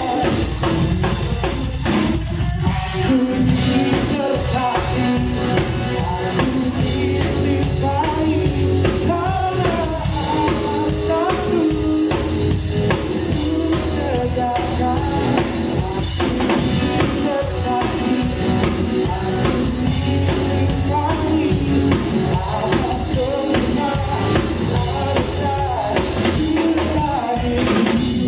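Live band playing a praise-and-worship song, with drum kit, guitar and singing.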